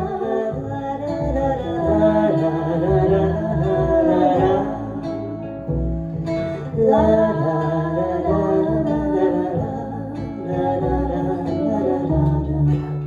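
Live acoustic guitar strumming the chords of a slow jazz standard, with a wordless sung or scatted vocal line over it during an instrumental break between verses.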